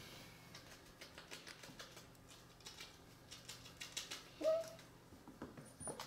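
A puppy scratching itself with a hind leg, giving rapid light clicks and taps, then one short high whine about four and a half seconds in. Near the end its claws click on a hardwood floor as it trots off.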